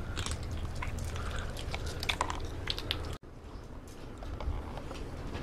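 Kittens eating food: small, irregular clicking and crunching chewing sounds, which stop abruptly about three seconds in.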